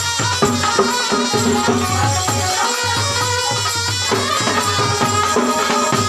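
Dhak drums beating a quick, steady Durga puja rhythm, with a sustained pitched melody playing over the drumming.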